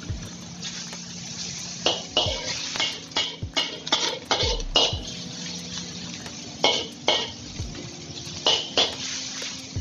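Wok spatula scraping and clanking against the wok as pork is stir-fried, in irregular flurries of sharp ringing strokes.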